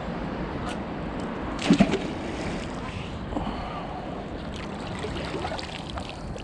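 Water sloshing and trickling as a fishing magnet and its catch are pulled from the water, with one sharp knock a little under two seconds in and a few small clicks.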